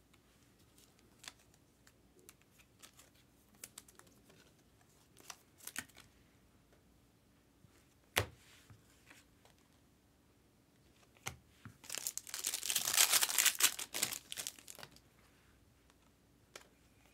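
Scattered light clicks and taps of trading cards being handled, then, about twelve seconds in, a couple of seconds of loud crinkling and tearing as a trading card pack's wrapper is ripped open.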